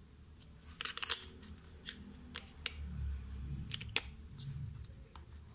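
Sharp clicks and taps of a hard plastic end cap being pressed and worked onto a reservoir paint roller, bunched about a second in and again between two and four seconds. The cap won't snap shut.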